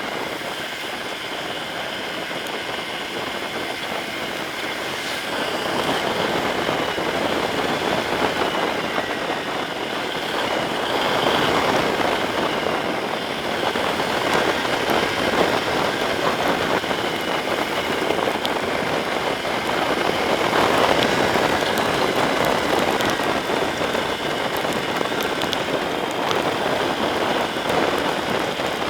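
Motorcycle ride in the rain: steady rain and wind rush over the Yamaha Serow 250's single-cylinder engine, the noise growing a little louder a few seconds in.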